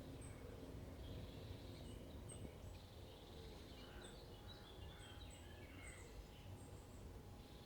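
Faint outdoor ambience: scattered short, high chirps of small birds over a steady low rumble.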